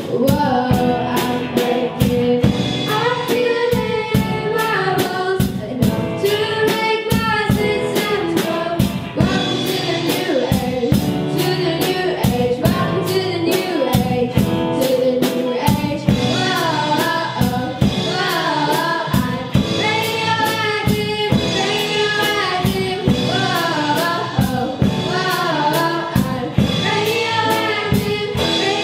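A school-age rock band playing live: two girls singing lead together over a steady drum-kit beat, electric bass, electric guitar and keyboard.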